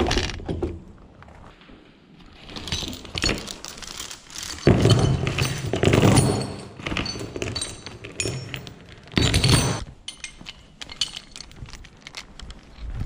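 Heavy steel chain rattling and clanking as it is dragged out of a pile and handled, in loud bursts of clinking links about five seconds in and again just after nine seconds.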